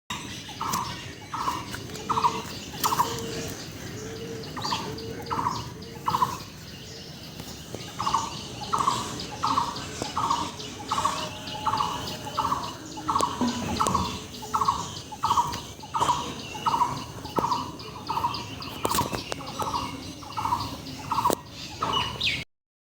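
A bird calling over and over in a steady series of short calls, about one and a half a second, with a few lower calls from a second bird in the first seconds and a couple of sharp clicks. The sound cuts off suddenly near the end.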